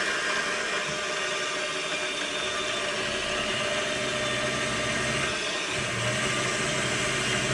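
Small variable-speed milling machine running, drilling a quarter-inch hole through O1 tool steel: a steady motor and spindle whir, with a lower hum coming in about three seconds in and again near the end.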